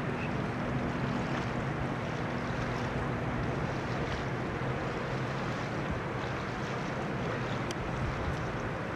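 Steady wind noise on the open deck of a cruise liner, buffeting the microphone. A low steady hum underneath fades out about three and a half seconds in.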